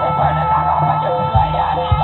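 Jaranan accompaniment music for a barong dance: a repeating melodic figure of stepped notes over a low sustained tone, with heavy drum strikes late on.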